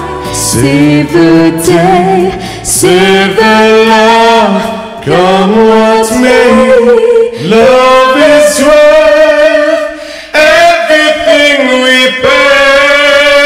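A man and a woman singing a duet in harmony, with long held notes and sliding runs, the accompaniment thin or absent.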